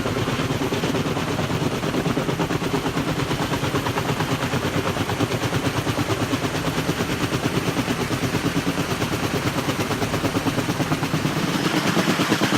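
Kaman K-MAX heavy-lift helicopter with intermeshing twin rotors, its blades making a rapid, even chopping beat that grows a little louder near the end.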